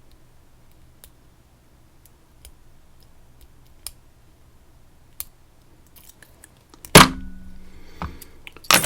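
Faint scattered clicks of hand work on the padlock, then two loud sharp knocks of hard objects being set down on a bench, the first with a brief ringing tail.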